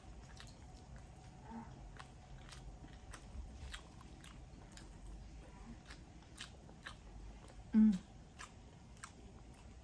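Close-up mouth sounds of a person chewing saucy barbecue chicken: many small wet clicks and smacks. One short low hum near the end is the loudest sound.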